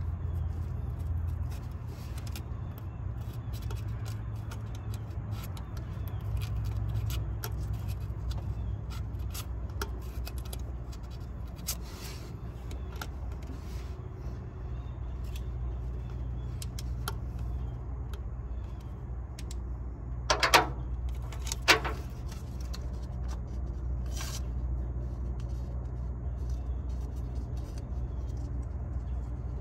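Small metal scrapes and clicks of a pocketknife working the dirty breaker points inside a 1937 Plymouth's distributor, cleaning them to restore spark. A steady low rumble sits underneath, and two louder clicks come about two-thirds of the way through.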